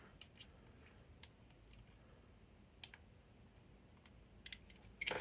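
A few faint, scattered clicks and taps of hands working a switch loose from an RC car chassis; otherwise near silence.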